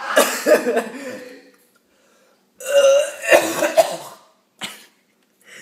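A person retching and gagging, throwing up milk after chugging it, in two strong heaving bouts with a short silent pause between and a brief final gag near the end.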